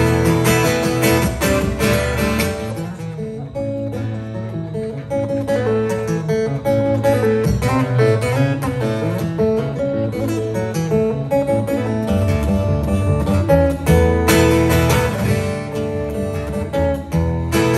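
Solo cutaway acoustic guitar played live, an instrumental passage of plucked bass notes and melody that grows fuller near the end.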